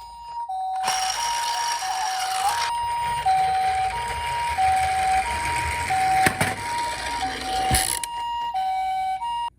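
Toy ambulance's electronic two-tone hi-lo siren (the Japanese ambulance 'pee-poh') repeating steadily. From about a second in to about eight seconds it is joined by the rolling noise of the toy's wheels running down a slope, with two sharp knocks near the end.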